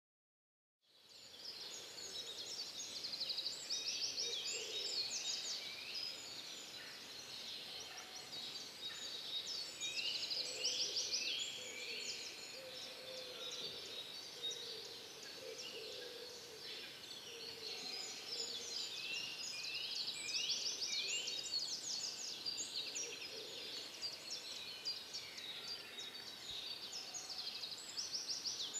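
Outdoor spring birdsong: several small songbirds singing over one another in fast chirps and trills, starting about a second in, with a fainter lower call underneath.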